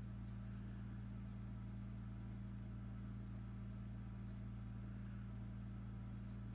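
Steady low hum of a running incubator fan motor, unchanging throughout.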